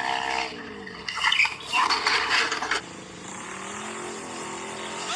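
Motorbike engines: one falls in pitch early on, then comes a loud rough noisy stretch lasting a couple of seconds. After that a quieter engine rises in pitch as it revs up.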